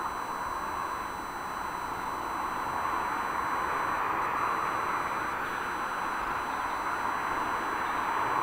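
Jet airliner engines heard from the ground as an arriving aircraft passes, a steady rushing noise that dips briefly about a second in and then slowly grows louder.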